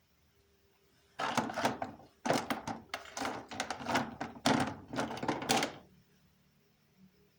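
A dense run of knocks and clatter from objects being handled, starting about a second in and lasting about four and a half seconds.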